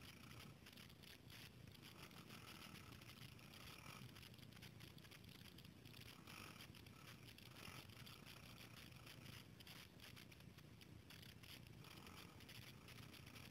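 Near silence: faint, even background noise.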